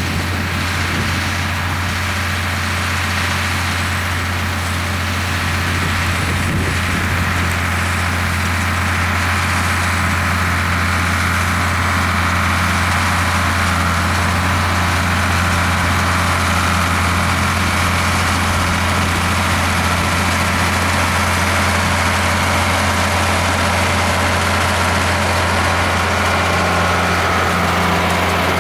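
International Harvester 1066 tractor's six-cylinder turbo diesel running steadily, with a constant low drone and no change in speed.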